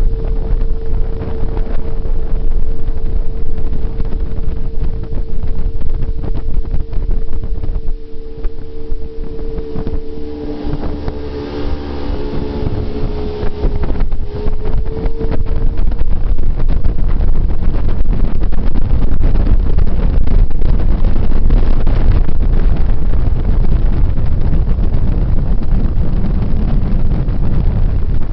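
Silver Streak jet boat running at speed, its engine a steady loud drone, with heavy wind buffeting on the microphone. The engine note shifts and wavers for a few seconds near the middle, then the low rumble runs at full throttle to the end.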